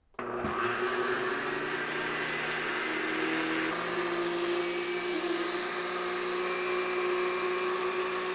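Cuisinart countertop blender switched on just after the start, blending sweetened condensed milk and Irish whiskey. Its motor runs up to speed within about a second, holds a steady pitch, and is switched off and winds down at the very end.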